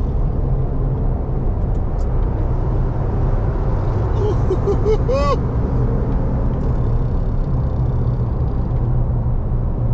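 Steady low road and engine rumble inside a pickup's cab while driving at freeway speed. A few short vocal calls rise over it about four to five seconds in.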